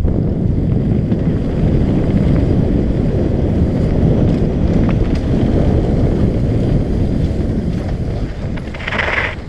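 Wind buffeting the microphone and steady rumble while riding a downhill mountain bike on a dirt trail, with a brief higher-pitched sound near the end.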